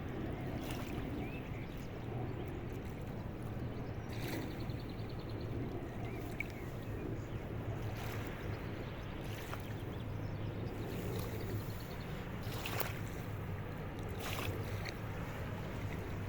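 River boat engine droning low and steady, over a haze of water and wind noise, with a few scattered sharp clicks.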